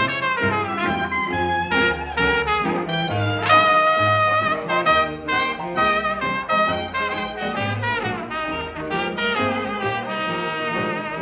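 Small traditional jazz band playing live, horns leading over a rhythm section, with sustained horn notes; the playing eases down over the last few seconds.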